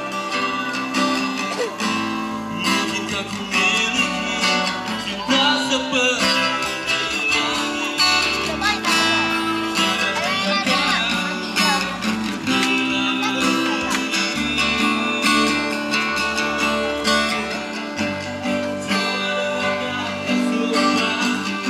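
Live band playing through the stage sound system: strummed guitar over a steady backing, with a singer.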